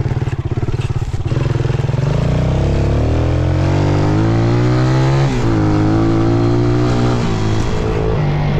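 A motor vehicle's engine idles with a fast, rough beat, then pulls away, rising in pitch for a few seconds. It dips briefly about five seconds in, as at a gear change, then holds steady and eases off near the end.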